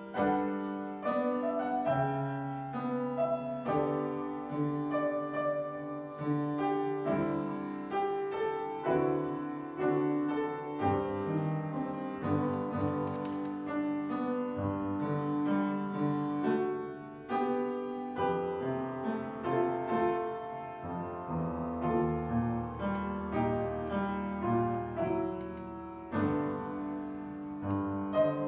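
Solo piano playing a slow prelude, notes ringing and overlapping as new chords come in steadily.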